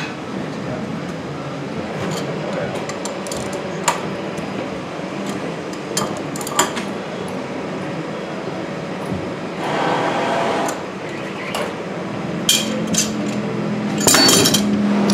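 An adjustable wrench and pliers clinking on a brass fitting on corrugated stainless steel gas pipe as its nut is tightened, the body held still while the nut is turned. A few sharp metallic clicks come through, then a longer clatter of handling near the end, over steady background noise.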